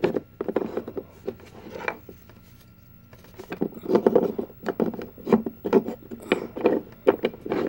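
Wooden burr puzzle pieces clacking and scraping against each other as the last piece is worked into place, with a quieter lull about two seconds in before a busy run of knocks.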